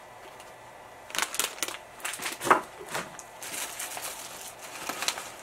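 Tissue paper and cellophane candy bags rustling and crinkling on and off as they are handled in a cardboard box.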